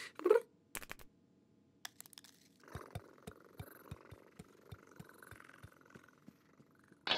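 A brief cartoon cat vocal sound with a rising pitch, a few soft clicks, then soft rustling with light, evenly spaced pad-like footfalls, about three a second, as the cartoon cat walks away. Music starts right at the end.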